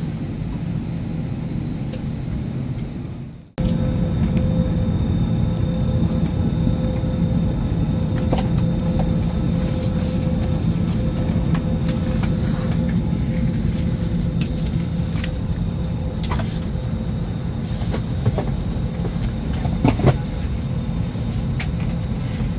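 Steady low rumble and hum of a vehicle interior, with a faint steady tone and a few light clicks; it drops out briefly about three and a half seconds in and comes back a little louder.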